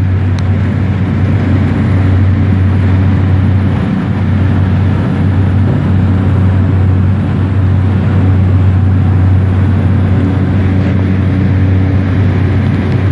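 Light aircraft engine at takeoff power during the takeoff roll and initial climb, heard from inside the cabin as a loud, steady low drone with airflow noise.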